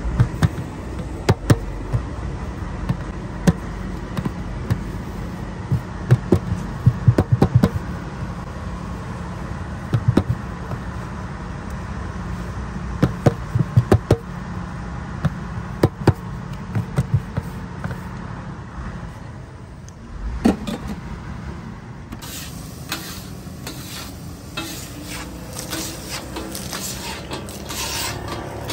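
Hands pressing, folding and slapping stuffed paratha dough on a floured tray: sharp slaps and taps over a steady low hum. From about 22 seconds in, oil sizzling and crackling with scraping on a large hot iron tawa.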